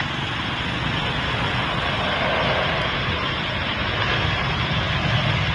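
Boeing 737-900ER's CFM56-7B jet engines running at approach power as the airliner comes over the threshold to land: a steady rushing jet noise that grows slightly louder.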